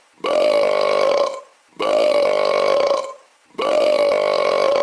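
Three long, loud belches in a row, each held for over a second at a steady pitch, with short breaks between them.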